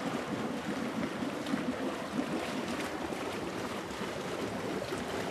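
Jacuzzi jets bubbling steadily in a small pool, an even churning of water.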